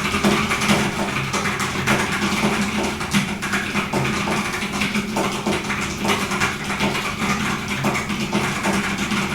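Fast, continuous typing on a UT47.2 40% mechanical keyboard with Drop Halo True tactile switches: a dense, unbroken stream of keystrokes, several a second.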